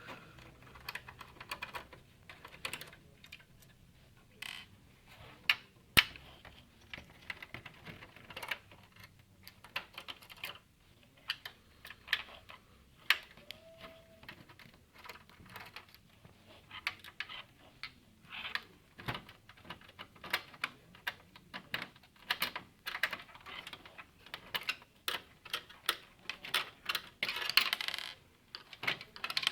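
Irregular small clicks and scrapes of a screwdriver working screws out of a computer's metal case, busier near the end.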